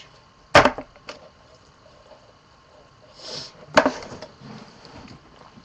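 Short, sudden close-up noises of someone drinking from a paper cup through a straw: a sharp noise about half a second in, a brief breathy hiss a little past three seconds, then another sharp noise just after it.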